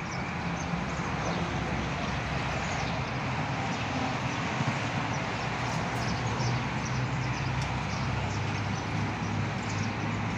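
Steady outdoor background noise: a continuous low hum under an even hiss, with no distinct events.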